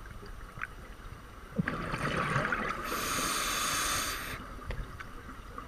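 Scuba diver breathing through a regulator, picked up underwater by the camera: a loud rush of bubbling and hiss starting about a second and a half in and lasting about three seconds, then fading back to a faint underwater background.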